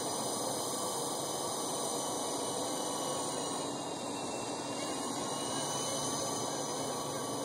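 Steady hiss with a faint, wavering whine from a small electric RC helicopter's motor and rotor.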